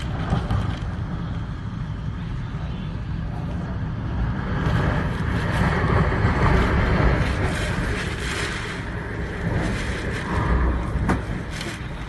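Typhoon winds blowing in strong gusts with driving rain, with a heavy low wind rumble on the microphone that swells about halfway through.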